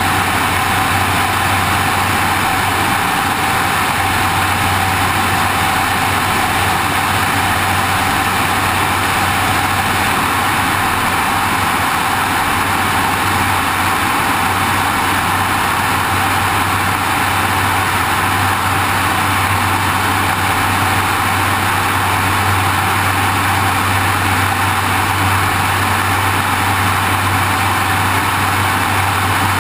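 Airplane in flight heard from a wing-mounted GoPro: a steady, unchanging engine drone with a low hum, under rushing airflow over the camera.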